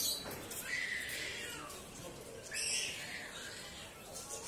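Two high, pitched animal calls, one about a second in and a louder one near the three-second mark.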